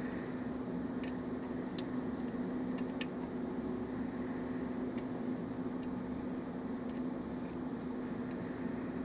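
Faint scattered metal clicks and ticks of a pick and tension tool working the pins of a Russwin lock cylinder, over a steady low background hum.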